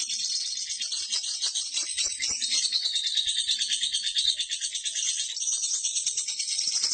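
Lovebird chattering in a long, unbroken run of rapid high-pitched chirps: the prolonged 'ngekek' song.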